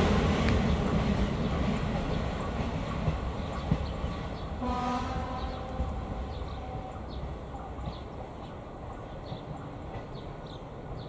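ČD class 810 diesel railbus moving away from the level crossing, its engine and wheel noise fading steadily. About five seconds in, a short horn blast sounds from the departing railbus.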